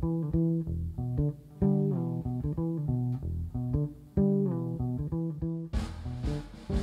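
Background music: plucked guitar over a bass line, note by note in a steady rhythm. Near the end the music fills out with a noisier layer of sharp, hissing strokes.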